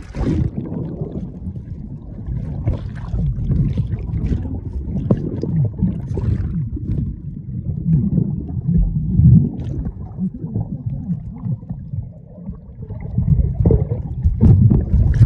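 Muffled churning and bubbling of seawater heard with the microphone underwater and at the splashing surface: a low rumble that surges and fades, with louder splashing swells about nine seconds in and near the end.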